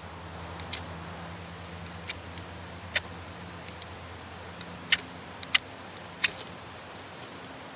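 Knife spine struck down a ferrocerium rod to throw sparks onto a pile of wood shavings: about six short, sharp metal scrapes at uneven intervals.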